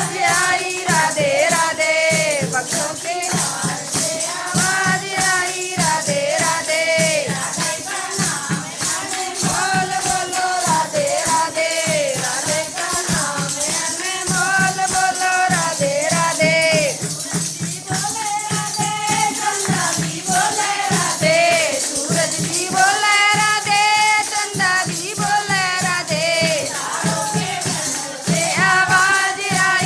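Haryanvi devotional bhajan: a singing voice carries the melody over a steady drum beat and shaken, rattling percussion.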